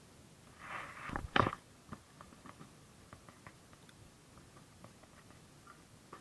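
A brief rustle, then two sharp knocks a fraction of a second apart, followed by scattered light clicks.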